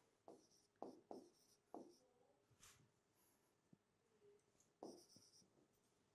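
Faint pen strokes writing on a board: about half a dozen short, separate strokes, unevenly spaced.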